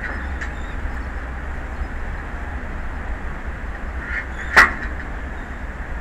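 Steady wind buffeting an outdoor microphone with an even rushing noise over the open sea. A single short, sharp sound stands out about four and a half seconds in.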